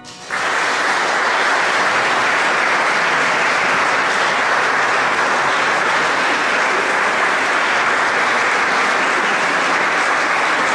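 Audience applauding, breaking out suddenly about a third of a second in and then holding at a steady level.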